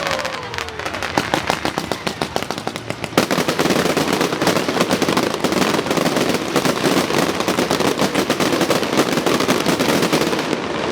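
Fireworks crackling in a dense, rapid stream of pops, growing louder and thicker about three seconds in.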